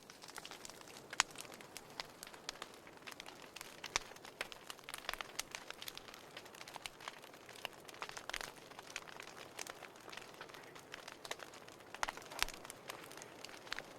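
Fire crackling in a fireplace: irregular pops and snaps over a soft hiss, with a sharper pop about a second in and a cluster of louder ones near the end.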